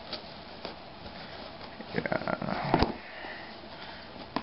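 Kitchen knife cutting the tape seal on a cardboard box: light clicks, then a scraping rustle of the blade against the cardboard about two seconds in, ending in one sharp knock.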